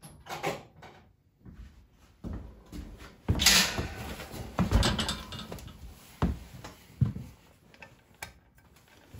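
Metal parts and tools being handled on an aluminium engine case, making irregular knocks, clunks and a louder scrape about three and a half seconds in. Near the end the crankshaft bearing sleeve is worked out of its bore by hand.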